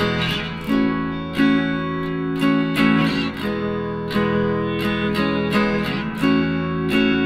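Background music of strummed acoustic guitar chords, with regularly spaced strums.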